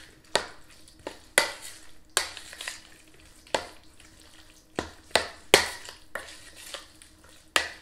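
A spoon stirring a thick, wet chicken and vegetable pot pie filling in a mixing bowl: sharp knocks of the spoon against the bowl, about eight of them at uneven intervals, with a wet stirring noise between.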